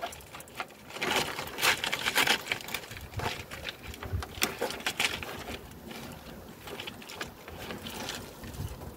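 Fingers working gritty bonsai soil mix of akadama, pumice and perlite in a plastic pot, making irregular scratchy rustles and small clicks, busiest in the first few seconds.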